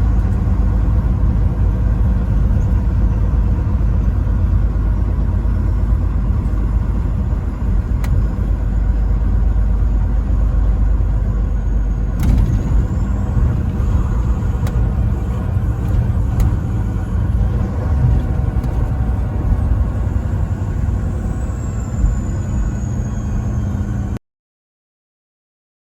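Truck driving at road speed: a steady low engine drone and road rumble, with a sharp click about 12 seconds in. The sound drops out to total silence about two seconds before the end.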